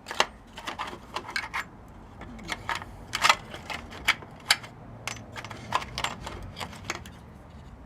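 Small metal washers clicking and clinking as they are handled and fitted, a run of irregular sharp ticks, the loudest a little past three seconds in.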